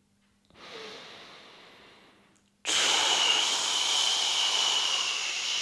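A man breathing slowly during a held exercise. A soft inhale through the nose starts about half a second in and fades. About two and a half seconds in, a sudden long hissing exhale through the mouth begins.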